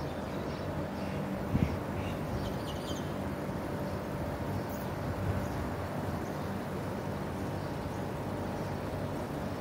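Steady city background hum heard from a rooftop, with a few short bird calls in the first few seconds. A single dull bump about a second and a half in is the loudest moment.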